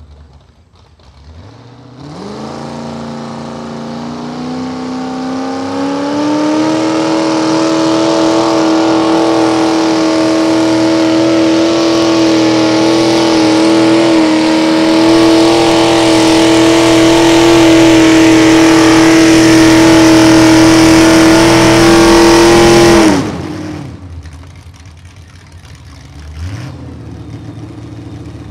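Mini modified pulling tractor's engine at full throttle under load as it pulls the sled: revs climb over the first few seconds, then hold high and nearly steady for about twenty seconds. The engine then drops suddenly to a low idle, with one short blip of the throttle near the end.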